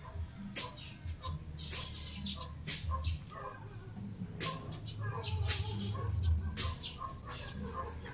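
Machete cutting through grass and weeds in sharp strokes, about six of them roughly a second apart, with birds chirping in the background.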